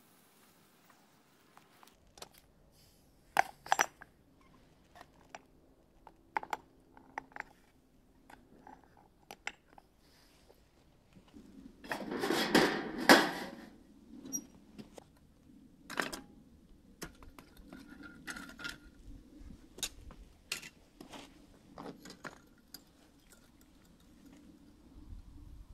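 Metal tongs setting an ingot mold down on a metal pan: a run of clinks and scraping clatter about halfway through, the loudest sound, with scattered lighter clicks and knocks before and after.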